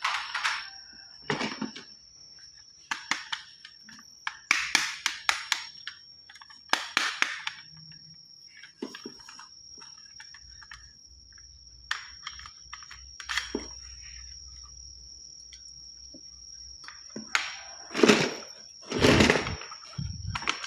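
Plastic toy guns and their packaging being handled: irregular rustles, clicks and knocks, with two heavier thumps near the end, over a steady high-pitched whine.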